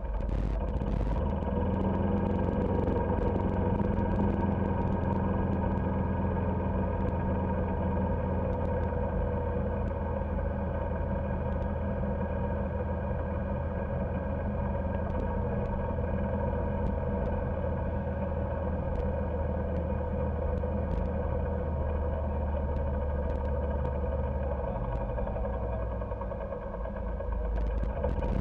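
Golf cart driving at a steady speed, heard from on board: an even motor drone with a low rumble underneath and occasional faint clicks.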